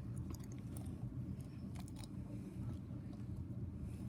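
Slime with sprinkles mixed in being squeezed and worked by hand, giving faint, scattered crackles and little pops over a low hum.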